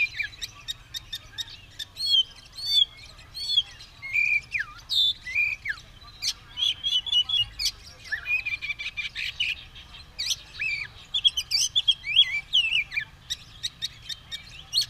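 Oriental magpie-robin (kacer) singing continuously: a varied run of clear whistled phrases, rising and falling glides and short sharp chips with barely a pause. It is the nonstop 'gacor' song of a male in full condition, worked up and ready to fight.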